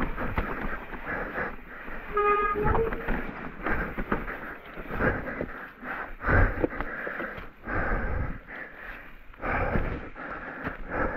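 Mountain bike riding over rough, wet trail: irregular rattling and knocks from the bike, with tyre and wind noise on the helmet- or bike-mounted camera microphone. A brief squeal sounds about two seconds in.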